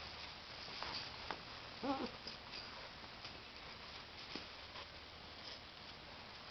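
Labrador retriever puppies at play, faint. One puppy gives a single short yelp about two seconds in, and a few light clicks and rustles come through around it.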